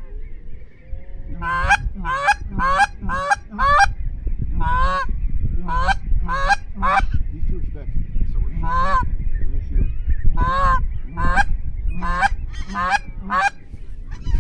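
Geese honking: a long run of short calls, each rising then falling in pitch, coming quickly at first and then more spaced, over a steady low rumble.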